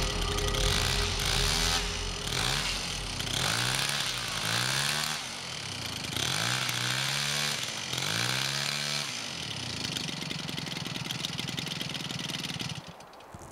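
Gasoline engine of a large RC Cessna 182 model, a 111 cc DLE twin-cylinder two-stroke, run on the ground. It is revved up and down several times, settles to a steadier run, and cuts off suddenly near the end.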